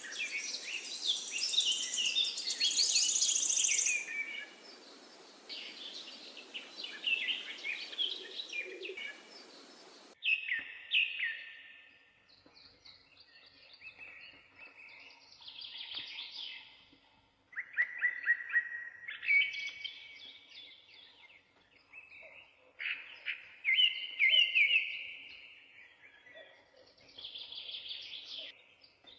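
Finches singing: rapid twittering and trilled song phrases. For the first ten seconds several birds sing over a hissy background, then the sound cuts abruptly to a cleaner recording of separate song phrases with short pauses between them.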